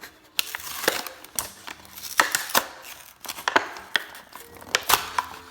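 A small doll's retail packaging being opened by hand: an irregular run of sharp snaps and clicks with crinkling and rustling of plastic and cardboard.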